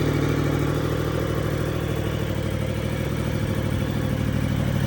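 Yamaha V-Star 950's air-cooled V-twin idling steadily as it warms up.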